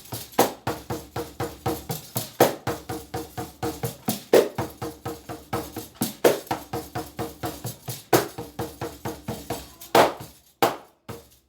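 Pandeiro played in a partido alto samba rhythm: a fast, even run of strokes with jingling, and a stronger accented stroke about every two seconds. Near the end the pattern breaks off into a few last separate strokes.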